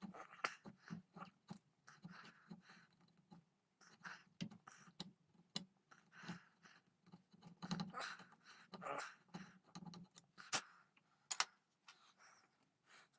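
Hand chisel cutting and paring the wood of a rifle stock to inlet a trigger: irregular short scrapes with sharp little clicks, quiet and uneven in rhythm.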